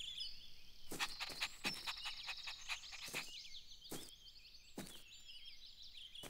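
Faint birdsong ambience with chirping throughout, and a quick, irregular run of light taps, about a dozen, in the first five seconds, fitting cartoon footstep sound effects for a small puppy scampering.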